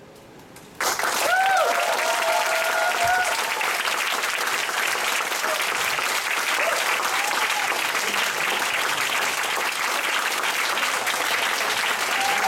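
Audience starts clapping suddenly about a second in and keeps applauding steadily, with a short cheer from one voice soon after the clapping starts.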